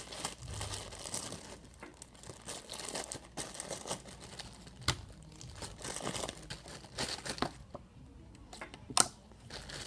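Sticky black slime being handled in its plastic bag: an irregular run of crackly clicks and pops, the sharpest about five and nine seconds in.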